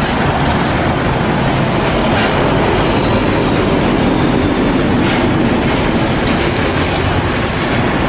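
Loud, steady rumbling and rattling noise like a train running on rails, which starts and cuts off suddenly.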